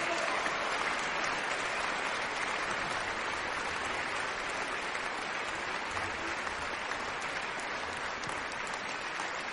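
Theatre audience applauding steadily at the end of a ballet variation, a dense even clapping that holds at one level throughout.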